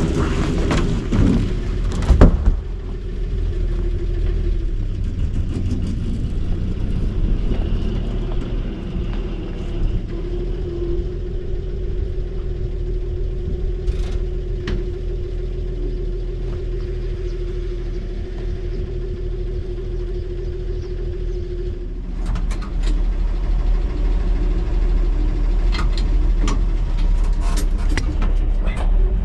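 Old Chevrolet Maple Leaf truck's engine running steadily. Sharp clunks and knocks come in the first two seconds and again through the last several seconds.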